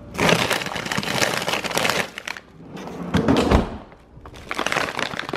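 Plastic bag of frozen biscuits crinkling and rustling as it is handled among other frozen packages, in three bouts of crackling with short pauses between.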